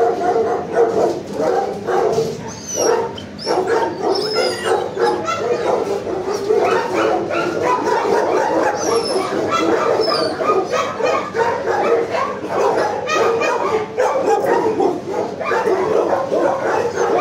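Many shelter dogs barking, yipping and whining at once from the kennels, an unbroken chorus of overlapping voices with short high whines rising above it now and then.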